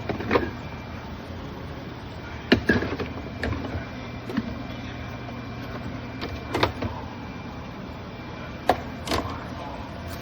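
A steady low mechanical hum, with scattered sharp knocks and clicks from something being handled, about eight in all; the loudest come about two and a half seconds in and near the end.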